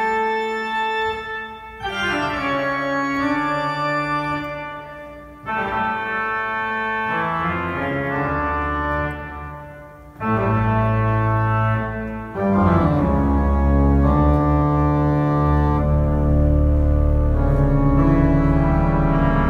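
Pipe organ playing sustained full chords that change every few seconds. About ten seconds in it gets louder, and from about twelve seconds in a deep bass joins and the sound is at its fullest.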